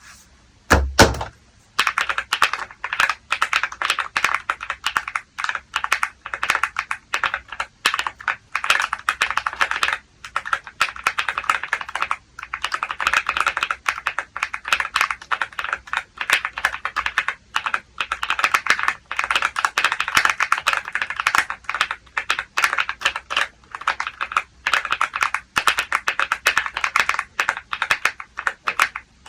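Continuous fast typing on a Weikav Lucky 65 V2 mechanical keyboard with Gateron Maestro linear switches and PBT Cherry-profile keycaps: dense, rapid keystroke clacks with a few short pauses. A couple of loud low knocks come about a second in, just before the typing starts.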